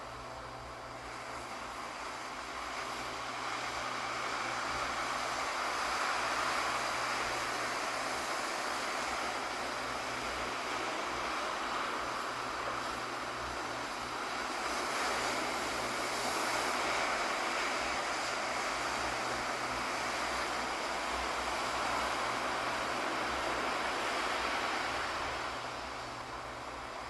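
Ocean surf: a continuous wash of breaking waves that builds over the first few seconds, holds, and eases off near the end.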